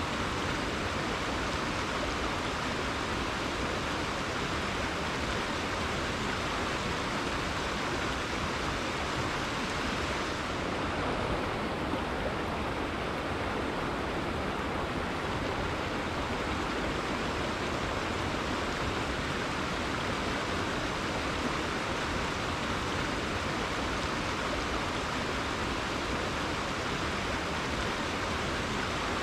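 A rainforest river flowing: steady rushing water with no break or change.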